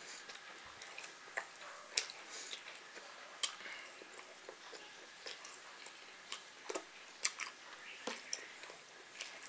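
Close-up eating sounds: irregular wet clicks and lip smacks of someone chewing food.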